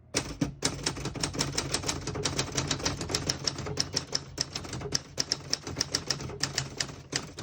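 1974 Adler J2 manual portable typewriter being typed on: a fast, steady run of sharp keystroke clacks, several a second, as the typebars strike the platen while typing a sentence.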